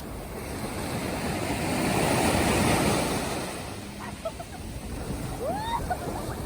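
Sea waves breaking on the shore: the wash swells to a peak about two to three seconds in, then recedes. There is some wind on the microphone.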